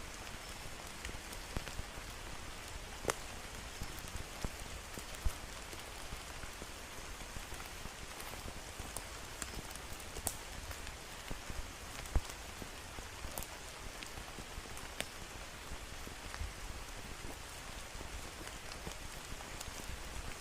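Steady rain falling through rainforest, an even hiss with scattered louder drops tapping and dripping.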